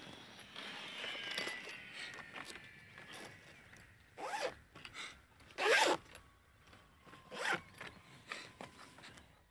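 Zipper on a padded fabric model-glider cover being drawn closed around the tail: one long pull in the first few seconds, then three short, louder zip strokes.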